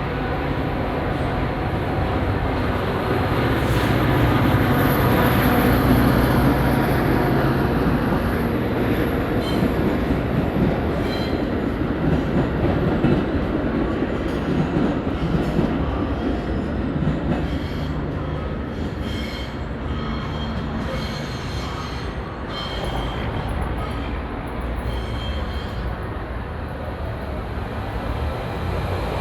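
Trains running past on the rails: a steady rumble of wheels with clatter, loudest a few seconds in, and brief high wheel squeals in the second half.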